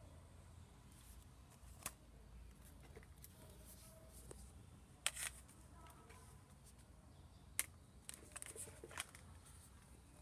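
Metal-bodied smartphones handled and set down on a woven placemat: a few sharp clicks and taps, the loudest about five seconds in and a small cluster near the end, over a faint low hum.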